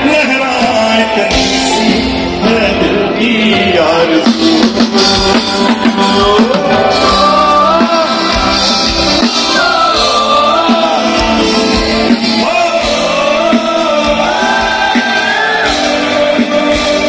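Loud live concert music: a singer's voice carried over a full band.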